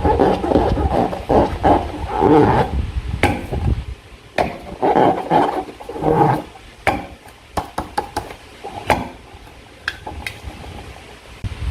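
Slime being squeezed and worked by hand, wet squelching and sticky clicking: dense for the first few seconds, then sparser squishes and sharp clicks with short pauses.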